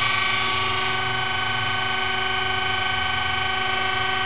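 A surface grinder's wheel and the motor-driven electric centers running, grinding the outside of a hardened steel drill bushing on a mandrel. The sound is a steady whine of several tones over a high hiss.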